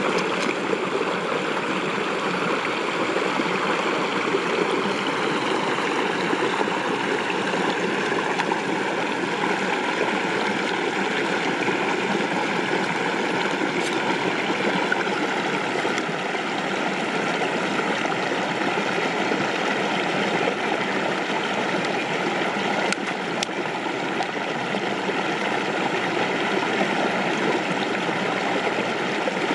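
Flowing water rushing steadily, with a few faint clicks.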